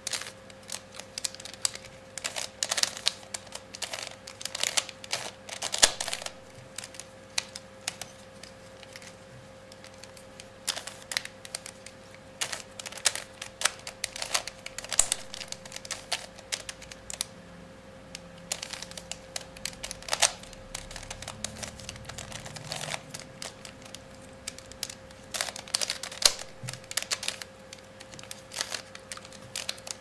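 Plastic mirror-block cube (irregular 3x3x3 Rubik's-type puzzle) being turned by hand during a solve: quick, irregular clicks and clacks of its layers turning and snapping into place, in flurries with short pauses between them.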